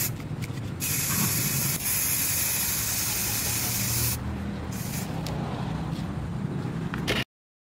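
Aerosol spray-paint can hissing in two sprays: a short burst, a brief pause, then a steady spray of about three seconds that stops.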